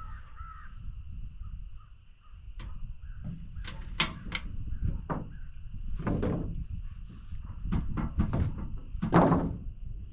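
Irregular knocks and thuds of wooden framing work: purlin boards being set and nailed onto roof trusses. A steady high-pitched drone runs behind.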